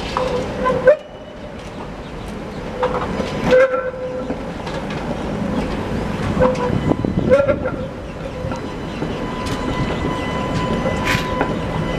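Tatra T3 trams running over the junction track, a rolling rumble and clatter over the rail crossings. Short high wheel squeals come several times, and a thin steady squeal joins in near the end.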